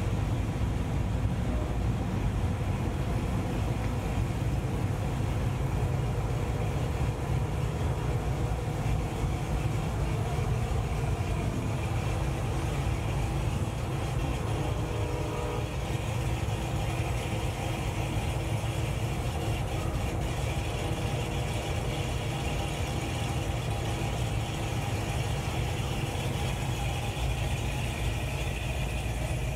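Engines of classic pickup trucks running steadily as they cruise slowly past one after another.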